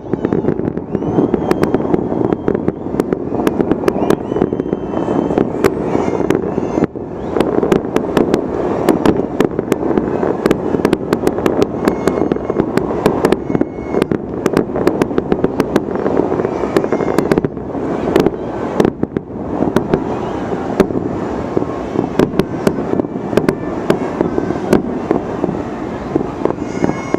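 Rooftop fireworks display: a dense, continuous barrage of crackles and sharp bangs, with a few short whistles in the first several seconds.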